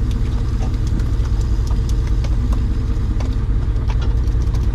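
An engine running steadily at an even speed, with scattered light clicks over it.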